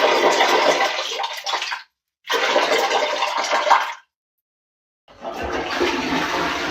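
Water sounds in a toilet bowl, in separate takes. Rushing water stops about two seconds in, a second burst of under two seconds follows, and after a second of silence a toilet flush starts with a low rumble and carries on.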